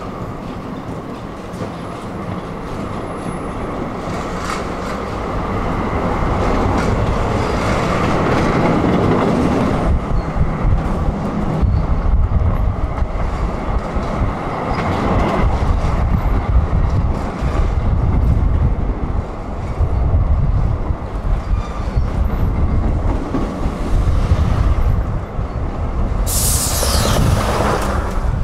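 Tram running along its rails. Its rumble builds over the first several seconds to a loud, heavy rumble, with scattered clacks over rail joints. Near the end comes a brief high squeal that falls in pitch.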